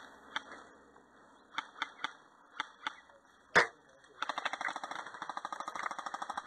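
Airsoft electric gun firing full-auto bursts, a rapid clatter of about a dozen shots a second in the second half. Before that come scattered single shots or BB hits, and one sharp, loud crack about three and a half seconds in.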